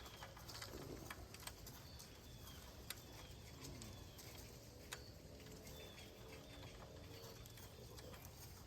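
Near silence with faint bird chirps and a few light clicks and taps from handling handlebar parts.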